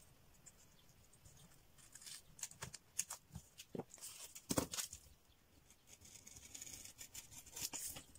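Faint rustling and handling of paper, with a few crisp snips of small scissors cutting a strip of black paper backed with double-sided tape, most of them around the middle.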